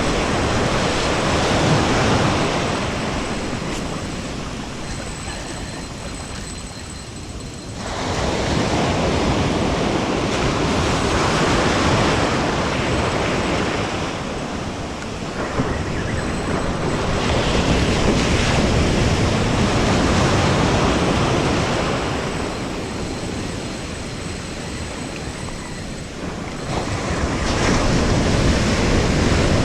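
Ocean surf breaking on a beach: loud washing noise that swells and fades, with fresh breakers crashing in suddenly about eight, fifteen and twenty-seven seconds in.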